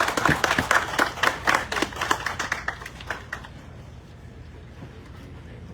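Audience applauding, a round of hand clapping that thins out and dies away about three and a half seconds in.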